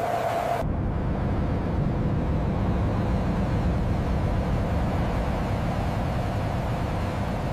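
Jet aircraft engine noise: a deep, steady rumble. It comes in abruptly about half a second in, replacing an airy rushing hiss with a steady hum.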